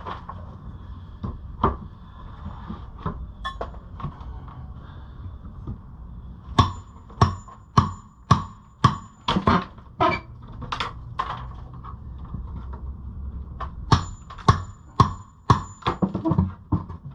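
Hammer blows on wood. Scattered knocks come first, then two runs of sharp, evenly spaced strikes at about two a second, each run with a faint high ring.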